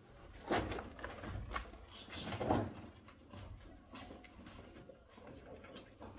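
A few soft knocks and clatters, as of things being handled and set down, the strongest about half a second, a second and a half and two and a half seconds in, then fainter ticks.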